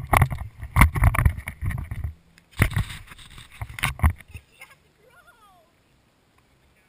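Rough knocks, bumps and scraping rumble on a helmet-mounted action camera as a rider tumbles off a plastic big wheel in a crash, in two bouts over about four seconds, then it goes quiet.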